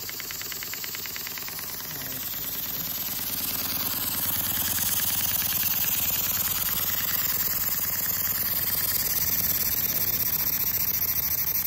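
Stuart Turner S50 model horizontal engine running fast, its exhaust a rapid even beat. Between about two and four seconds in it gets louder and turns into a steady hiss as the regulator tap is opened and the engine speeds up.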